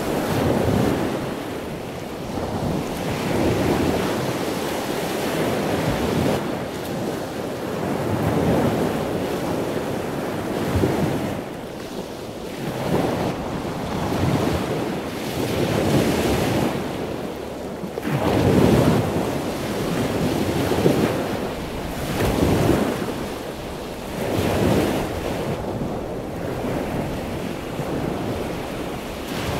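Ocean surf: waves breaking and washing up the beach, the rush swelling and falling every two to three seconds, with wind mixed in.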